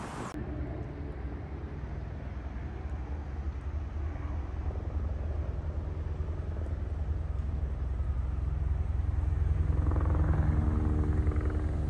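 A low, steady engine rumble that slowly grows louder, with a higher hum joining about ten seconds in.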